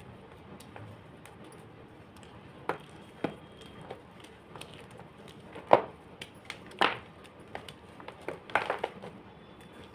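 Homemade gym chalk being crushed, breaking in scattered sharp crunches and cracks. The loudest crack comes about six seconds in, and there is a quick run of small crunches near the end.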